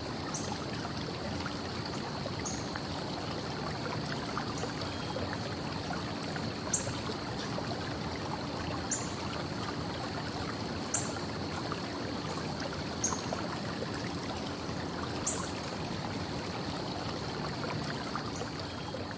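Steady hiss of distant traffic, with a short high bird chirp repeating about every two seconds and a thin steady high tone underneath.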